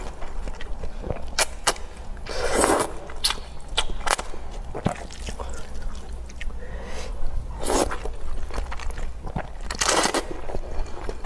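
Close-miked eating of noodle soup: scattered sharp wet clicks and smacks of chewing, with three longer slurps, about two and a half, eight and ten seconds in.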